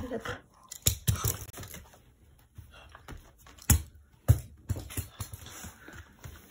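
A Shiba Inu playing with a hard perforated plastic ball makes irregular sharp clicks and knocks. The two loudest come near the middle.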